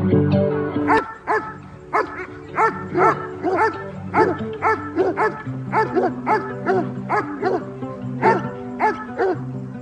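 A dog barking over and over in a steady rhythm, about three barks a second, starting about a second in, with background music underneath.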